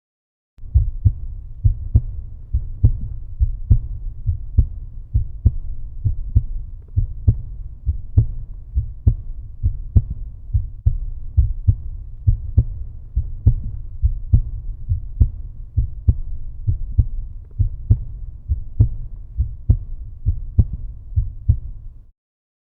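A heartbeat beating in a steady rhythm of low, deep thumps, a little under a second apart. It cuts off suddenly near the end.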